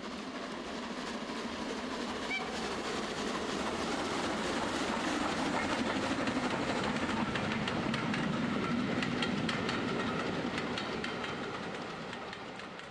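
Train running on track, a steady rumble with rapid clicking of wheels over the rails, fading in and then out near the end.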